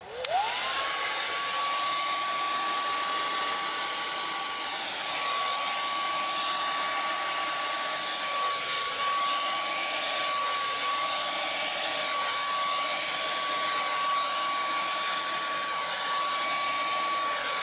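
Handheld hair dryer switched on at full speed: its motor whine rises quickly to a steady high tone, then holds over a steady rush of blowing air.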